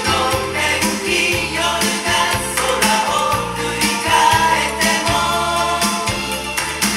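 A pop song with group vocals over a steady bass beat, played from a vinyl record through an all-horn five-way loudspeaker system.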